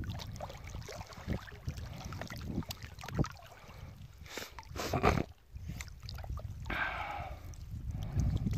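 Water sloshing and splashing as a cast net is hauled in by hand from the water, in irregular splashes with a stronger splash about five seconds in.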